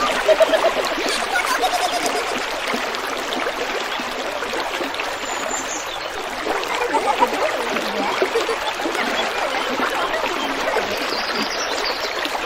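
Small stream of water flowing steadily, a trickling, splashing rush of water.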